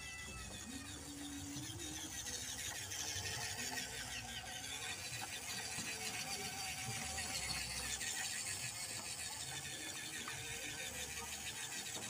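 WPL D12 RC mini truck's small electric motor and gears whirring steadily as it drives over wet wooden boards, a little louder from about two seconds in.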